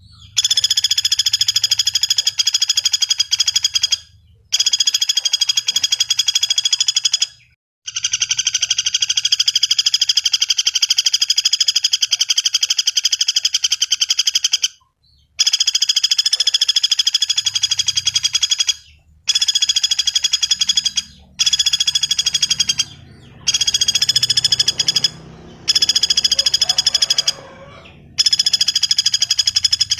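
Pelatuk bawang woodpecker calling: a loud rattle of rapid, evenly repeated notes in runs a few seconds long, broken by brief pauses.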